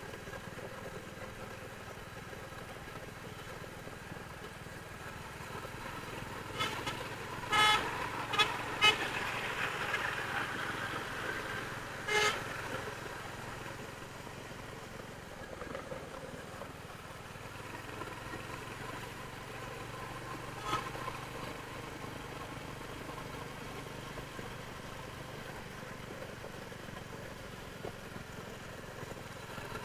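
Royal Enfield Hunter 350's single-cylinder engine running steadily through its stock exhaust. Vehicle horns honk in short blasts: a cluster of four or five, the loudest sounds here, about a quarter of the way in, and one more a little past the middle.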